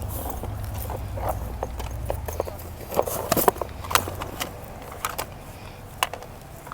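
Irregular clicks and knocks of objects being shifted and handled while rummaging through a curbside trash pile of shoes and books, the loudest cluster about three to four seconds in. A low rumble underneath fades out after about three seconds.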